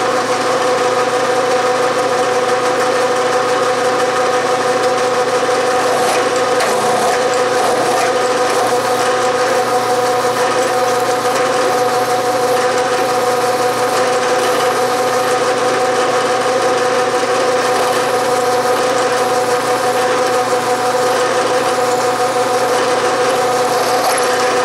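Bridgeport milling machine running, a steady machine hum with a few constant tones, as a 5/16-inch stubby drill bit bores through a metal bar.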